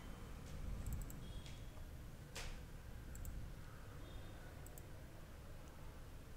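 Computer mouse clicks: a handful of light, scattered clicks with one louder click about two and a half seconds in, over a low steady hum.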